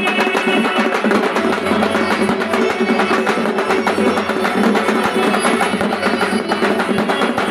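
A street band of drums playing a fast, dense beat without a break, with a steady low hum underneath from about a second in.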